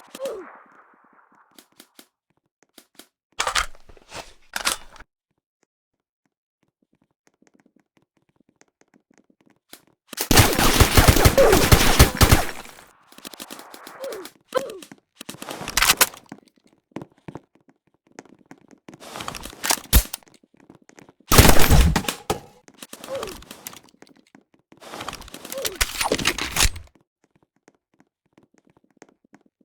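Airsoft guns firing in bursts, including one long burst of rapid fire lasting about two seconds, with shorter bursts before and after.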